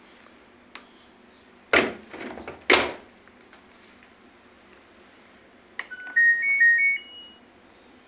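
The door of an LG Direct Drive front-loading washer-dryer is pushed shut with two loud thuds about a second apart. About six seconds in, a click of the power button is followed by the machine's short electronic power-on jingle of stepped rising beeps.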